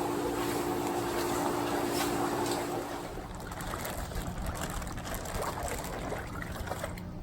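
Water trickling and splashing, with a steady mechanical hum that stops about three seconds in.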